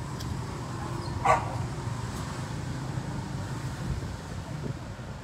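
A steady low hum, with one short, sharp, loud sound about a second in.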